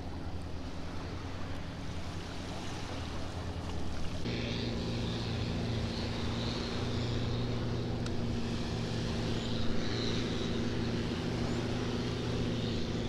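Motorboat engine running steadily, stepping up suddenly to a louder, fuller note about four seconds in and holding there.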